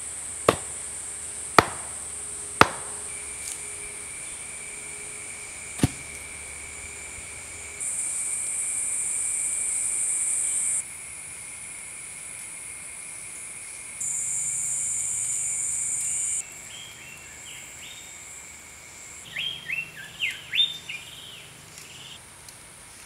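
A hand-held stone striking the top of a wooden post, four sharp knocks in the first six seconds, over a steady high drone of forest insects. Near the end a bird gives a quick run of chirps.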